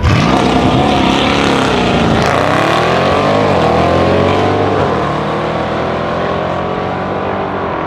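Audi RS6 C7's twin-turbo V8 through a decatted Milltek exhaust, loud and under hard throttle. The note starts suddenly, its pitch rises and falls over the first few seconds, then it runs steadier and a little quieter.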